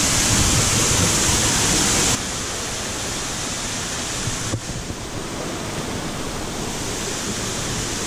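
Rushing white water of a waterfall pouring over rocks, a steady loud hiss. It drops abruptly in level about two seconds in.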